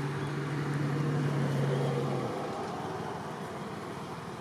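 A motor vehicle going by: a steady low engine hum stops a little over two seconds in, and the road noise swells and then fades.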